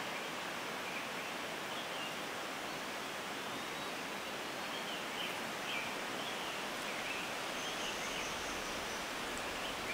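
Steady outdoor background hiss with a few faint, short, high chirps over it.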